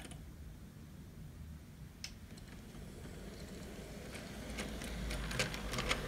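Hornby OO-gauge Peckett W4 model locomotive running with a cattle wagon: a low steady rumble from its motor and wheels, growing louder as it comes closer, with clicks from the wheels on the track coming thick and fast in the second half.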